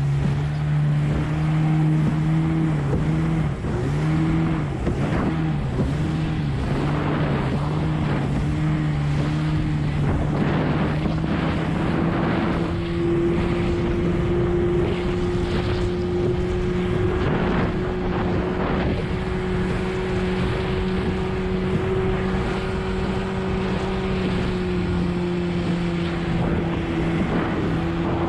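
20 hp Evinrude outboard running at speed on a small hydroplane. Its drone wavers rhythmically up and down for several seconds, then rises to a higher, steady pitch as the boat speeds up. Water slaps and splashes against the hull, with wind on the microphone.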